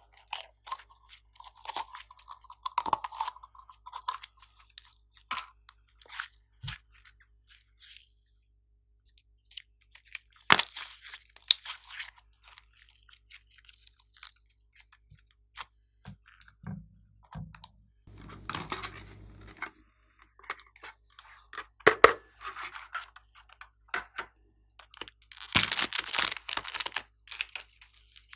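Hands stretching, squeezing and pulling slime, glossy purple and then pink fluffy slime, making irregular sticky crackles, pops and clicks with short quiet gaps. A louder run of crackling comes near the end.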